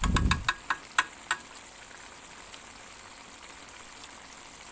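Chicken-and-tempe filling in coconut milk simmering in an aluminium wok, a steady low bubbling hiss. A low thump and a quick run of sharp clicks come in the first second or so.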